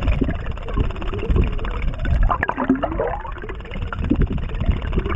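Bladed jig (chatterbait) being retrieved, heard underwater: its metal blade vibrating and knocking against the jig head as a run of irregular clicks over a low water rumble.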